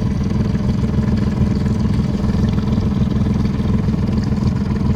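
Boat engine running steadily as the boat cruises along, a loud, even low drone with a fast flutter.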